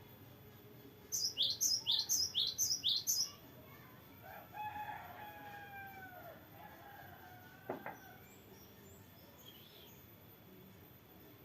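A cinereous tit (gelatik batu) sings a fast run of about eight high, sharply falling notes, some four a second, lasting about two seconds. A rooster crows more quietly behind it shortly afterwards, and a single click follows.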